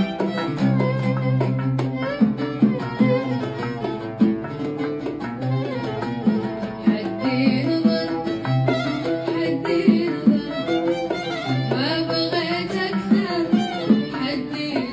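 Khaleeji Gulf folk music played live on an oud, a violin and a pair of hand drums: held melodic notes over a steady beat of sharp drum strokes.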